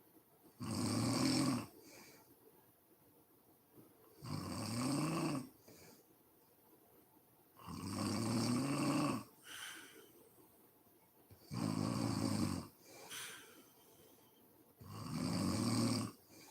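A sleeping woman snoring: five loud snores, each about a second long and coming about every three and a half seconds, some rising in pitch as they go, with quiet breathing between.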